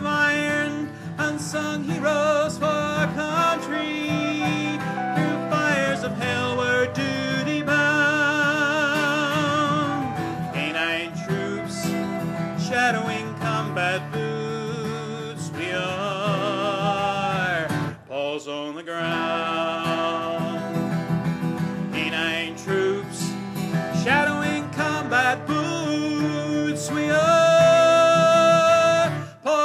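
Country music instrumental passage: acoustic guitar under a lead melody line with vibrato and sliding notes. The music briefly drops out about eighteen seconds in.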